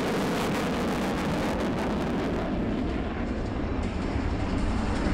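F-16C fighter jet's single engine running in afterburner, a loud crackling roar. About two and a half seconds in, the high crackle fades and a deeper rumble takes over.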